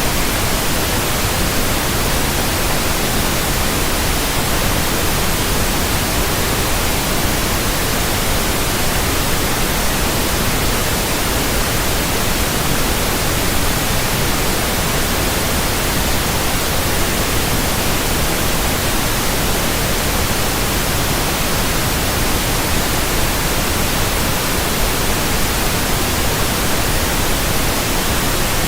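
Continuous static hiss: a loud, steady, even noise across all pitches with no changes or events, like an untuned TV or radio.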